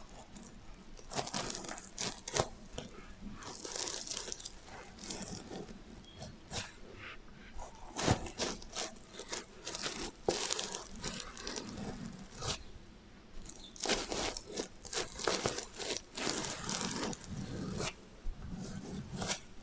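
Fingers scratching and brushing over the flip sequins of a sequin heart pillow: an irregular run of crinkly, scratchy rubs and sharp clicks, played with an added echo effect.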